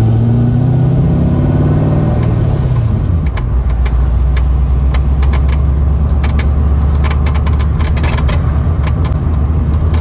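C6 Corvette Grand Sport's LS3 6.2-litre V8 running, heard from inside the cabin. Its revs drop about two to three seconds in and settle into a steady idle. Over the idle come repeated sharp clunks, thickest near the middle and later part. The owner traces the clunks to the overfilled dry sump, where the oil return-line tube rubs metal on metal at the O-ring that holds it.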